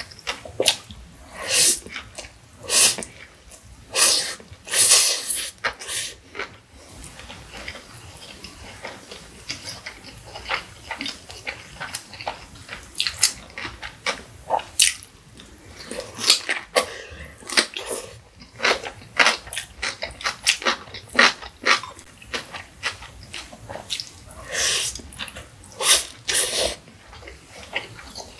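Close-miked eating sounds: slurping instant noodles, then crunching and wet chewing on pieces of cucumber kimchi, with many short sharp crunches and smacks at irregular intervals.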